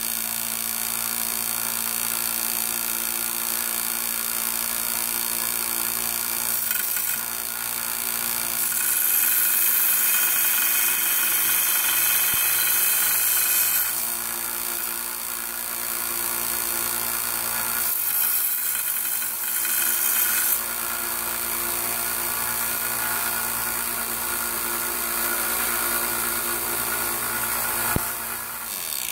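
Harbor Freight 1x30 belt sander running steadily while a hatchet's edge is ground on the belt. The grinding hiss grows louder in two longer passes, about a third and about two-thirds of the way in. The motor cuts off at the very end.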